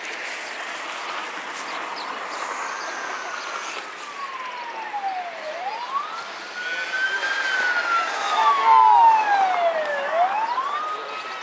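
An emergency vehicle's siren wailing, its pitch slowly sweeping down and back up over several seconds and growing louder about two-thirds of the way in as it draws nearer.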